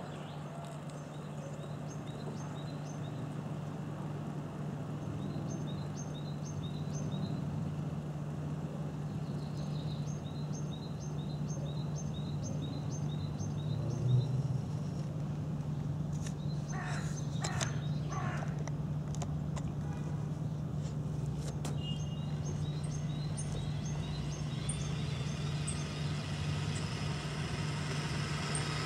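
Tamiya radio-controlled Mercedes-Benz Actros Gigaspace 6x4 model truck running, a steady low hum that grows a little louder near the end as it comes back. Small birds chirp in short bursts throughout, and a crow caws several times about two-thirds of the way through.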